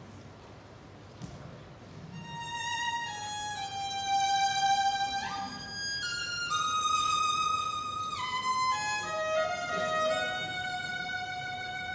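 Solo violin playing a slow melody of long held notes, entering about two seconds in, with a slide up to a higher note midway.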